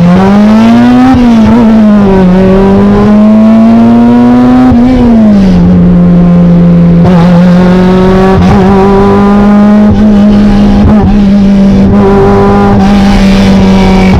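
1994 Acura Integra GSR's B18C1 four-cylinder running open header, with no exhaust behind the header, very loud. The revs climb and drop twice in the first five seconds, then the engine holds a steady speed.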